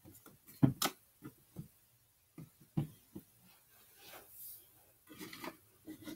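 A few light taps and soft rustles of objects being handled, with quiet stretches between; the clearest taps come just under a second in and near three seconds.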